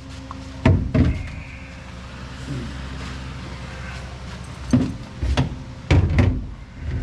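Several sharp knocks and clanks, some in close pairs, over a steady low mechanical hum.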